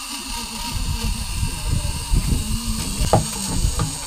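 Rumbling noise on a sport-fishing boat: irregular low thumps and knocks over a steady high hum, with a short higher knock about three seconds in.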